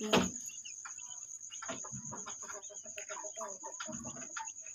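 Soft, scattered clucking of a broody hen, with straw rustling as a hand sorts through a basket nest of newly hatched quail chicks and eggs.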